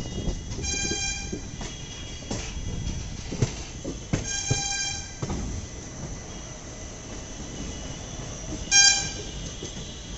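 Indian Railways passenger train rolling slowly out of a station, its wheels rumbling and knocking over the track. A horn sounds three times: two blasts of about a second each, then a short, loudest toot near the end.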